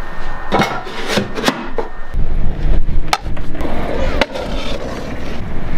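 Stunt scooter wheels rolling on concrete with a low rumble, and several sharp clacks of the scooter striking the ground and pool coping.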